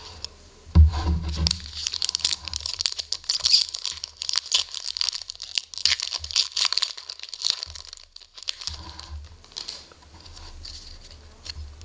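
A foil SPx hockey-card pack being torn open: a thump a little under a second in, then several seconds of crackling, crinkling foil as the wrapper is ripped. Softer rustling of the cards being handled follows near the end.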